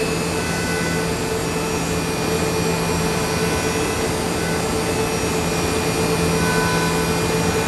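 Nakamura-Tome NTMX CNC turn-mill lathe cutting a metal workpiece: a steady machining noise with a constant low hum and a few steady whining tones.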